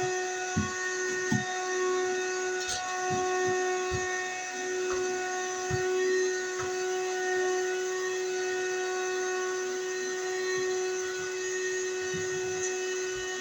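A steady electrical hum with several overtones runs throughout. A few soft low bumps sound in the first half, with one sharper click about three seconds in.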